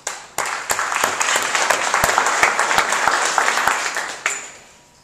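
Audience applauding for about four seconds, with a few close, sharp claps standing out, then dying away.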